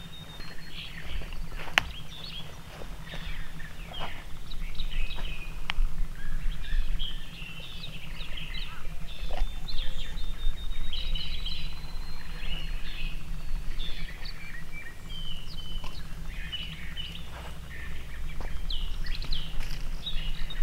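Several songbirds chirping and singing, with short calls overlapping and one long thin whistled note. A few sharp clicks and rustles come in the first few seconds.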